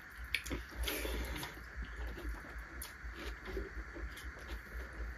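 Soft eating sounds: chewing and wet lip smacks, with scattered small clicks and rustles of fingers mixing rice on metal plates.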